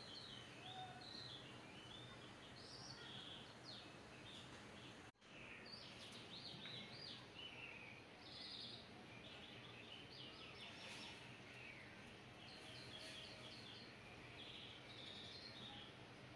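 Faint birdsong: many short chirps and twitters from small birds, repeating throughout over a steady low hiss, with a brief cut to silence about five seconds in.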